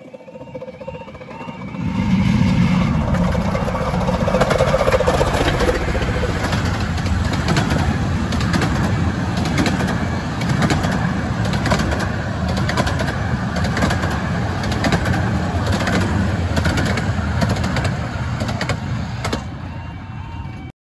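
A 15-inch gauge miniature steam train, hauled by the locomotive Winston Churchill, passing close by. It builds up loudly about two seconds in, then the carriages rumble past with wheels clicking over rail joints, and it fades near the end.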